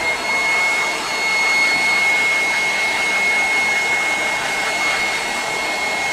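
Handheld leaf blower running at full speed: a steady high whine over rushing air.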